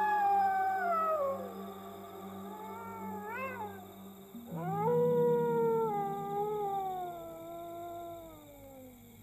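A dog howling. A long call falls in pitch at the start, a short rising-and-falling howl comes about three seconds in, and a second long howl starts about halfway and slides down in pitch until it fades near the end. A steady low hum runs underneath.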